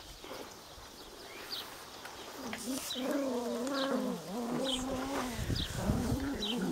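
A miniature schnauzer puppy giving a long, wavering whine-like cry, starting about two and a half seconds in and trailing off near five seconds, with a shorter cry again near the end. Faint bird chirps sound now and then, and a low rustling comes in near the end.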